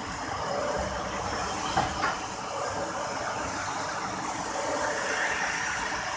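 Plastic injection moulding machine running with a steady hydraulic hiss and hum, with two sharp clicks a moment apart about two seconds in.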